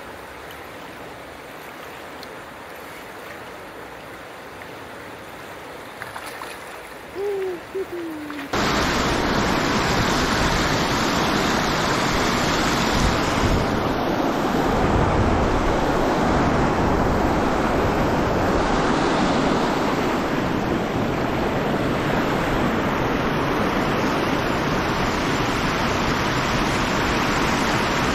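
River water rushing over rapids, a loud, steady rush that begins suddenly about eight and a half seconds in. Before that, a quieter flow of river water with a brief falling tone near seven seconds.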